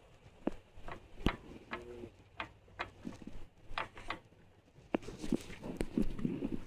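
Irregular light clicks and knocks, about a dozen, unevenly spaced, with a brief low hum about two seconds in.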